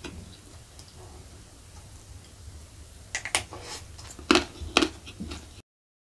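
Close-miked eating by hand: wet lip smacks and chewing clicks, with a run of sharp smacks from about three seconds in, over a low steady hum. The sound cuts out for a moment near the end.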